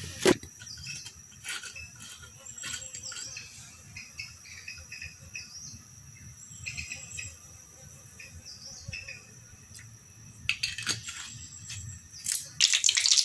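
Insects and birds chirping steadily in the background, with a sharp knock just after the start and a few more knocks near the end. Near the end a loud hissing sizzle starts, as something hits the hot coconut oil in the clay pot.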